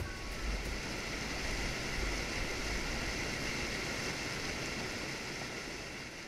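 Fast mountain stream rushing over rocks: a steady, even rush of water that begins to fade near the end.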